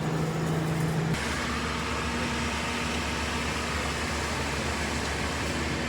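An engine running steadily, its pitch and tone changing abruptly about a second in.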